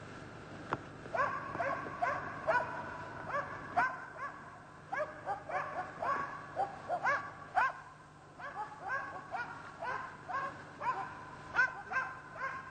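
Karelian Bear Dog bay-barking at a brown bear: a rapid, steady string of high barks, two to three a second, with a couple of short lulls.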